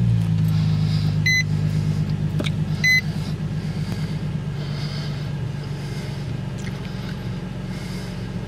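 Nissan 350Z's 3.5-litre V6 idling just after start-up, its note easing slightly as it settles. Two short dashboard warning beeps sound about a second and a half apart in the first three seconds.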